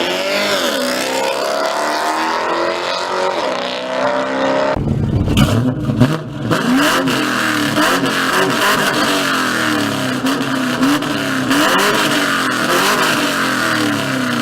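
High-performance sports car engines revving hard, their pitch gliding up and down. About 4.7 s in the sound cuts abruptly to another car's engine, whose pitch climbs and drops again several times as it accelerates.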